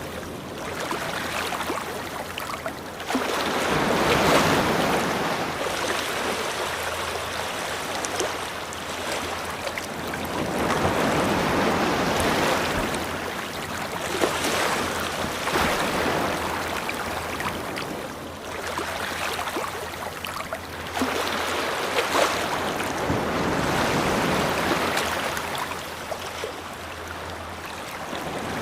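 Ocean waves washing onto a shore: a steady hiss of surf that swells and falls back, with about four larger waves breaking across the stretch.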